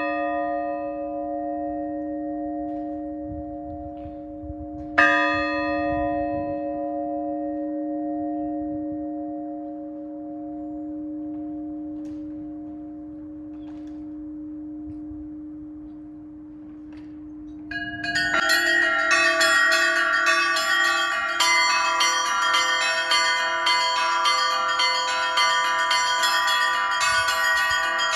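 Orthodox church bells. A large bell is struck once about five seconds in, and its deep hum rings on and slowly fades. From about eighteen seconds the full peal joins in, with many smaller bells rung rapidly in a steady pattern over the big bell.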